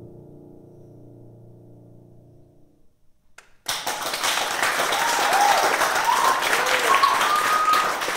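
Grand piano's last chord fading away for about three seconds, then a moment's hush before the audience breaks into loud applause, with a few voices calling out over the clapping.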